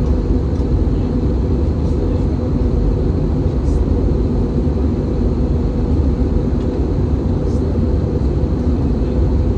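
Steady, low cabin roar inside an Airbus A320-214 in descent: the sound of its CFM56 engines and the air rushing past the fuselage, with a faint steady high whine above it.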